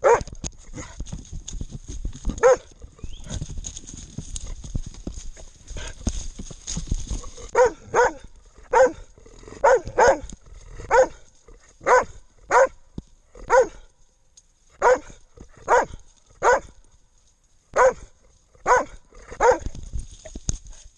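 A hunting dog barking loudly and repeatedly, close to the microphone, about one bark a second through most of the stretch. Before the run of barks there are a few single barks and several seconds of rustling and movement noise.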